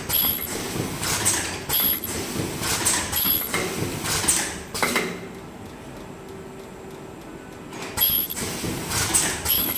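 Ultrasonic ear-loop mask welding machine running through its repeating cycle: sharp mechanical clacks and air hisses, each with a short high whine, coming about once a second. About halfway through the cycling stops for roughly three seconds, leaving a low steady hum, then starts again.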